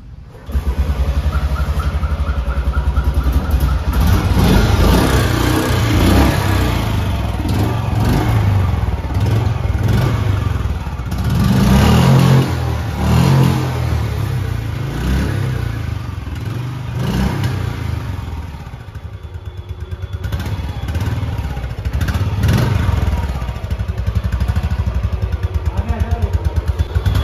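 Royal Enfield Bullet 350's single-cylinder engine, heard through its chrome silencer, starting about half a second in with a steady thumping idle. It is revved up and let fall back several times.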